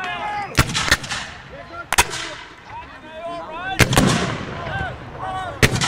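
Scattered black-powder rifle-musket shots, about seven sharp reports spread unevenly, several in close pairs, with men shouting between them.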